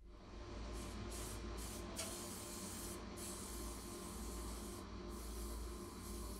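Aerosol spray can spraying primer onto sheet metal: a hiss that comes in a few quick short sprays, then longer sprays with brief breaks about 3 and 5 seconds in.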